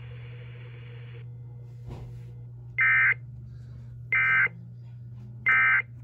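Emergency Alert System end-of-message (EOM) signal sent by an EAS encoder: three short, identical bursts of screechy two-tone digital data, a little over a second apart. A steady low electrical hum runs underneath.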